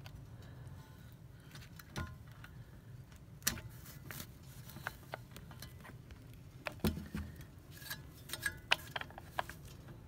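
Small metal clicks and rattles of a retaining clip being worked onto a shear pin on a snow blower's auger, with scattered handling knocks; the loudest clicks come about seven seconds in and in a quick run near the end.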